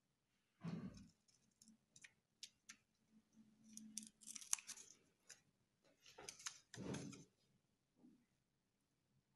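Small scissors snipping through folded coloured paper: short, crisp snips in a few clusters, with paper rustling and a couple of dull knocks from handling on the table.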